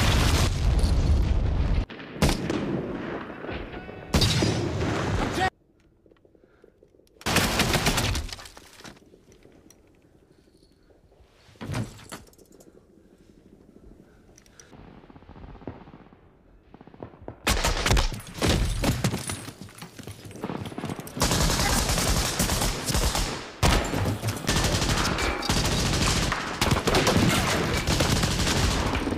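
War-film battle sound: a large explosion with the fireball at the start, a few loud gunshots, then a quieter stretch of about ten seconds. From about two-thirds of the way in comes dense, continuous rifle and machine-gun fire.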